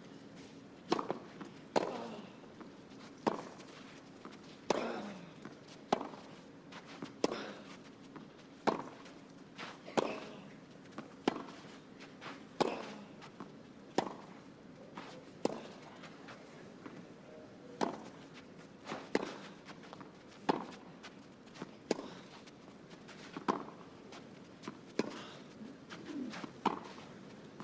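Tennis ball struck back and forth in a long baseline rally: a sharp racket hit about every second and a half, with a low steady hum underneath.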